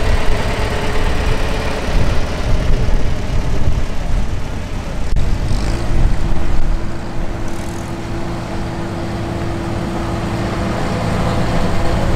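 A 1958 Farmall 340 tractor's engine running steadily as the tractor drives past at parade pace, with more tractor engines behind it. A steady hum joins about halfway through.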